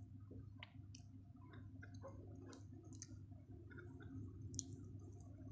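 Faint eating-by-hand sounds: scattered small clicks and soft wet squishes of fingers working rice and side dishes on a plate, with mouth noises, over a low steady hum. One sharper click comes near the end.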